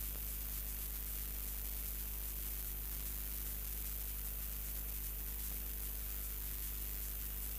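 Steady electrical hum with a hiss over it, unchanging, with no other sound: the bare noise of the audio feed.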